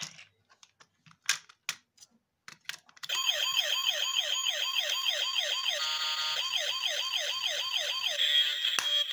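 A few sharp clicks, then about three seconds in a battery-powered toy car's electronic siren sound effect starts from its small speaker: fast repeating wails, about three a second, with a brief buzzing break midway. The toy is switched on and working again after a repair.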